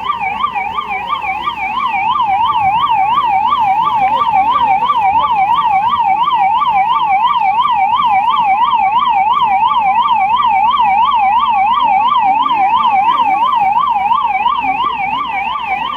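Emergency vehicle siren in a fast yelp, its pitch sweeping up and down about three times a second without a break.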